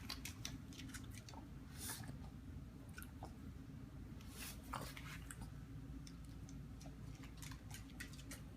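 A dog's mouth working at its own coat: irregular small wet clicks and smacks of teeth and tongue, chewing and nibbling, as it tries to reach a slice of salami stuck on its back. A steady low hum sits underneath.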